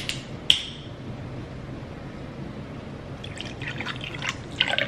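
Two sharp clinks about half a second apart, then from about three seconds in water being poured into a cup of ice, getting louder.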